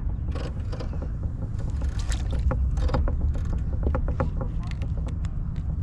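A run of sharp clicks and knocks over a steady low rumble, as fish are handled aboard a small boat.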